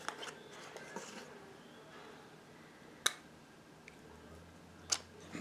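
Quiet handling noise from items being moved on a table: a few isolated sharp taps or clicks, one about three seconds in and another near five seconds, over low room tone.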